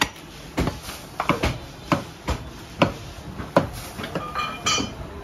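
Heavy butcher's cleaver chopping and hacking through a beef leg on a wooden chopping block: irregular sharp knocks, roughly two a second.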